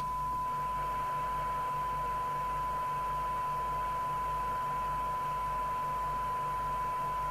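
Steady 1 kHz test tone over hiss from a Harrier CBX FM CB radio's receiver as it demodulates a weak signal-generator carrier near its sensitivity limit, around 12 dB SINAD at about 0.48 microvolts. A low mains hum runs underneath.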